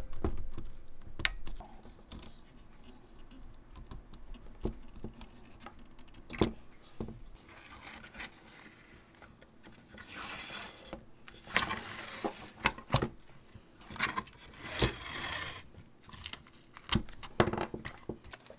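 Handling noise from hand work on parts: scattered light clicks and knocks, and four short scraping, rustling noises at about 8, 10, 12 and 15 seconds in.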